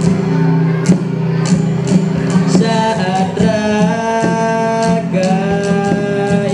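Acoustic guitar strummed over a steady cajón beat, with a teenage boy singing an Indonesian pop song into a microphone from about two and a half seconds in.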